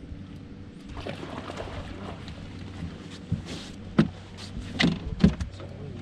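Handling noises aboard a fishing boat: a scatter of sharp knocks and thumps, the loudest between about three and five and a half seconds in, over a steady low hum.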